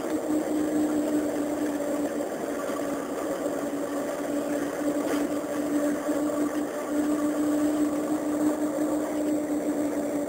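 Engine of the vehicle carrying the camera running steadily while cruising along the road, with a constant hum.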